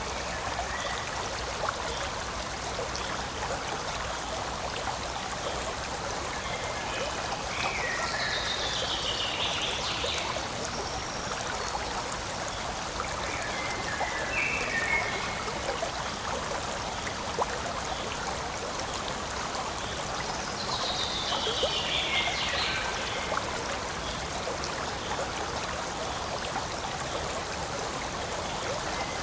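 Forest stream flowing and trickling in a steady rush of water. A few short calls sound over it, two of them longer calls falling in pitch.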